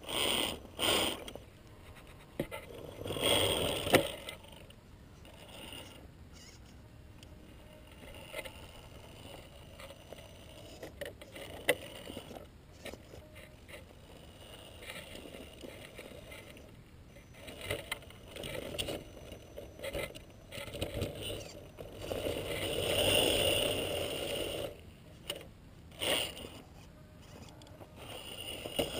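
Gmade Sawback scale RC rock crawler climbing over rocks. Its Holmes Hobbies 27-turn brushed electric motor and geared drivetrain whir in short bursts as the throttle is worked, with a longer, louder stretch in the second half.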